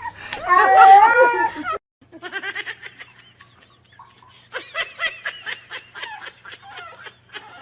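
A cat yowling loudly in long, wavering calls, which stop sharply under two seconds in. After a short break comes a person's laughter in quick high-pitched bursts.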